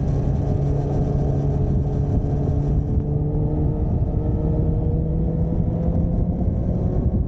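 Motorcycle engine running under way, its note rising slowly and steadily as the bike gains speed, over a constant low rumble.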